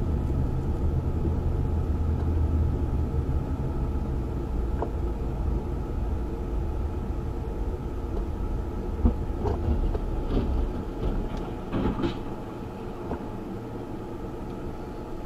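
Car driving, heard from inside the cabin: a steady low road and engine rumble that eases as the car slows to a stop, with a few short knocks in the second half.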